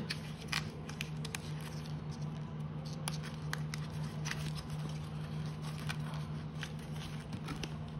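Light scattered taps and clicks of cardboard flash cards being handled and put together, over a steady low hum.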